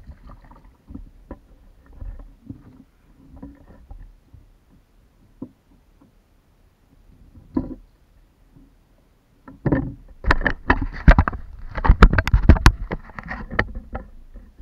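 Close handling knocks and clatter on a plastic kayak. Faint taps and rustles at first, then a dense run of loud, sharp knocks over the last five seconds.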